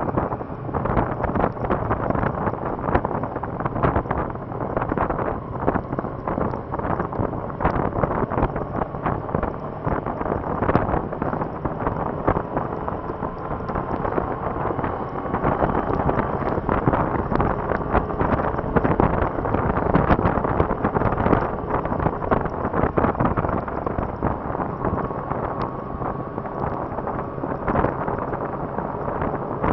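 Wind buffeting the microphone of a camera on a moving motorcycle in the rain, over the bike's running engine, whose faint note rises and falls in pitch as the speed changes.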